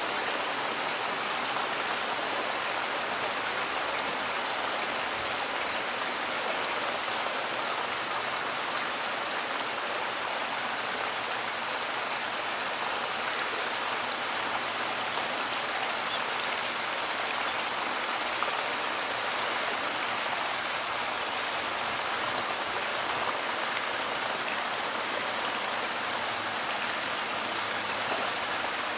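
Steady rush of running water in a polar bear pool, even throughout, with no distinct splashes standing out.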